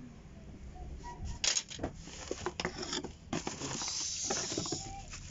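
Packaging being handled: a cardboard box and plastic wrapping rustle and knock, with a few sharp clicks and taps and a denser rustle about four seconds in.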